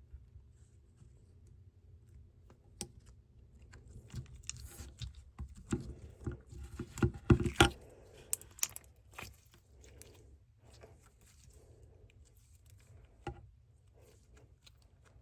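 Glossy slime being squished and stretched by hand, giving a run of small sticky clicks and pops that is busiest and loudest about seven seconds in.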